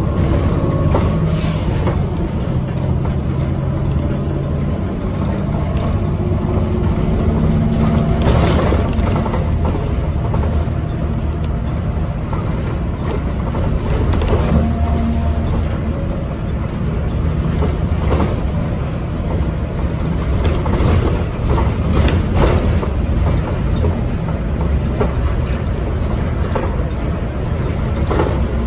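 A 2012 NABI Metro 45C transit bus under way, heard from inside. Its Cummins Westport L9N natural-gas engine drones as the Allison automatic moves through the gears, with the pitch shifting in steps during the first few seconds. Loose fittings in the cabin rattle, and there are several sharp knocks over bumps, the loudest about 8, 14 and 22 seconds in.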